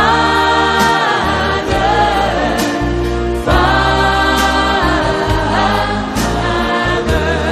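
Gospel worship song: a choir singing long held notes over low bass notes.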